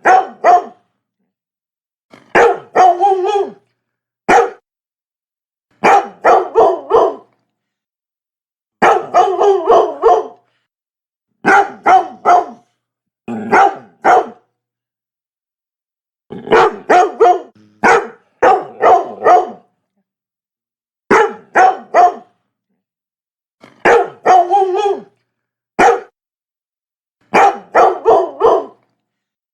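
Labrador barking in repeated bursts of several quick barks, with short silent gaps between the bursts.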